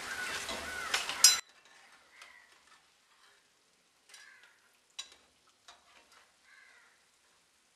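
Hot oil sizzling around golden-brown fried snacks that are done and ready to lift out, with a metal spatula stirring and scraping in the pan and a sharp metal clink about a second in. The sound then cuts off abruptly to a faint level, with only scattered faint clicks.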